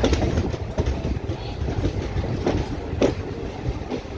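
Passenger train coach rolling out of a station, heard from an open doorway aboard: a steady low rumble with irregular wheel clacks over the track.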